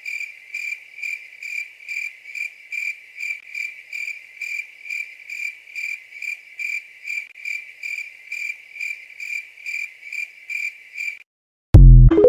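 A cricket chirping steadily, about two high chirps a second, the stock 'crickets' sound for a deadpan silence. It stops near the end, and a loud deep boom with a brief synth tone follows: the TikTok end-screen sound.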